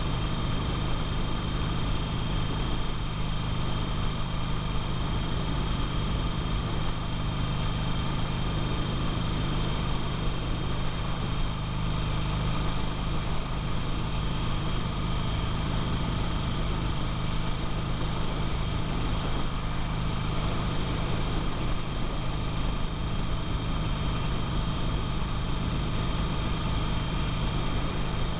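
2008 Harley-Davidson Sportster 883L's air-cooled V-twin engine running steadily while the bike cruises, with no change in engine speed.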